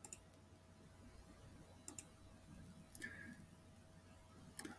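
Computer mouse button clicking: a few short, sharp clicks, several in quick pairs like double-clicks, spaced a second or two apart over faint room hiss.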